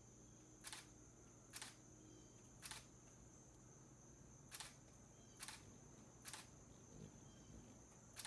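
Camera shutter clicking, seven single clicks at uneven intervals of about a second, over a steady high insect trill.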